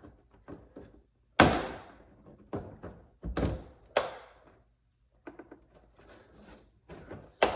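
Plastic retaining clips of a car's interior door panel popping loose as the panel is pried off: several sharp cracking pops with smaller knocks between them, the loudest about a second and a half in, around four seconds in, and near the end. It sounds like something breaking, but it is only the clips letting go.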